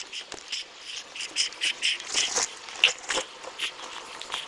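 Pug puppy moving about on a hardwood floor, making a run of short, irregular, hissy snuffles and scuffs, many quick bursts with gaps between them.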